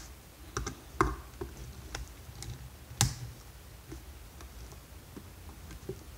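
Scattered sharp clicks and taps of a screwdriver working screws out of a vacuum motor's housing, the loudest about a second in and again about three seconds in.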